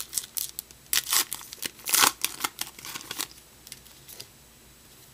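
A trading card pack wrapper being torn open by hand: a quick run of crinkling rips, loudest about two seconds in, dying away after about three seconds.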